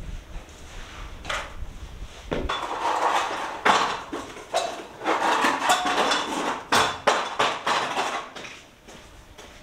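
A metal ladder being hauled and handled on a concrete floor: a run of irregular clanks and knocks with scraping in between, the loudest knocks just before 4 seconds in and a little before 7 seconds in.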